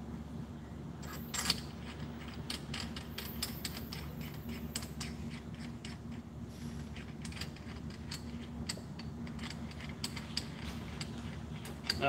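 Many small, sharp metallic clicks and ticks from hands fitting parts at the shock absorber of a scooter's front fork, thickest in the first few seconds, over a steady low hum.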